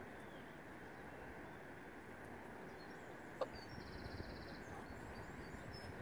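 Faint outdoor ambience: steady background noise with small birds chirping faintly at high pitch, including a short rapid trill in the second half. A single sharp, short sound stands out about three and a half seconds in.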